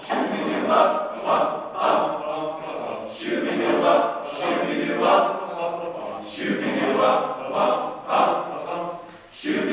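A choir singing a cappella in a doo-wop style, in short rhythmic phrases of sung syllables.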